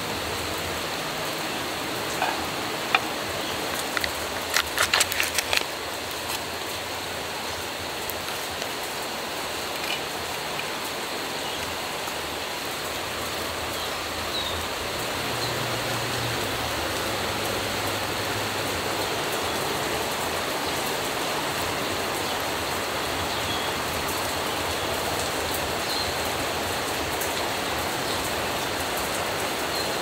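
Steady even hiss of outdoor background noise, slightly louder in the second half, with a quick cluster of light taps and knocks about four to six seconds in.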